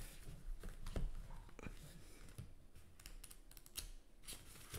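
A run of light, irregular clicks and taps, a few per second.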